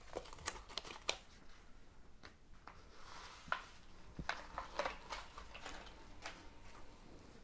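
Faint, irregular small clicks and light rustles of handling and movement, a few of them sharper taps.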